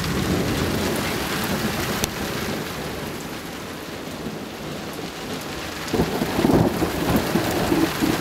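Steady rain falling on a wooden porch and yard, with thunder rumbling low, fading in the middle and swelling again from about six seconds in.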